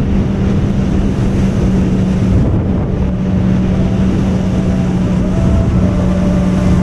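Jet ski engine running loud and steady at speed, with wind buffeting the microphone.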